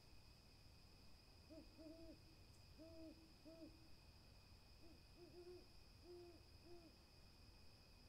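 An owl hooting faintly: two runs of short hoots, five or six in each, the first starting about a second and a half in and the second near five seconds. A faint steady high-pitched whine runs underneath.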